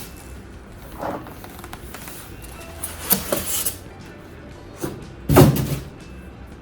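Packaging being handled while unboxing a large portable fridge: a few short scraping, rustling knocks, the loudest about five seconds in, over background music.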